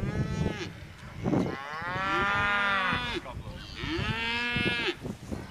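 Cattle mooing: three moos, a short one at the start, then two long drawn-out ones, with the middle moo the longest.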